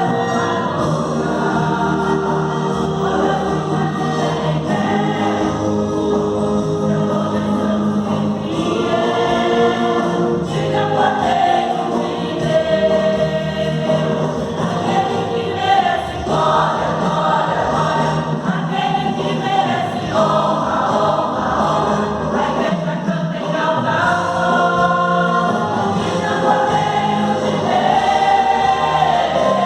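Church choir singing a gospel worship song, with held notes over a steady low accompaniment.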